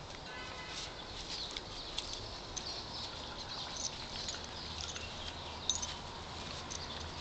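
A Queensland Heeler and a dachshund play-wrestling on grass: scuffling and rustling of paws and bodies, with scattered small clicks and one sharper click near the end.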